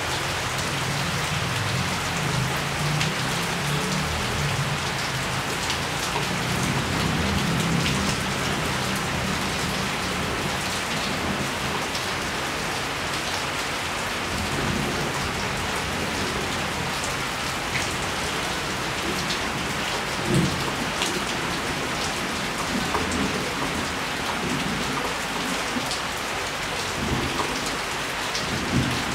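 Steady rain falling, pattering on surfaces, with scattered sharp drip ticks. A low rumble of thunder rolls under the rain through about the first eight or nine seconds and then fades.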